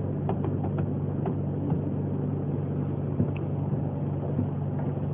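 A steady low hum over faint room noise, with a few soft clicks.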